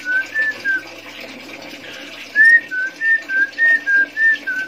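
Female Chinese hwamei (wambi) calling with a repeated whistled two-note phrase: short clear notes alternating higher and lower, about three a second. It comes in two runs, a short one at the start and a longer one after a pause of about a second and a half.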